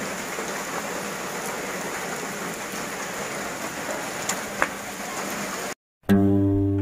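Steady, nonstop rain falling on puddles and muddy ground. It cuts off suddenly near the end, and strummed guitar music begins.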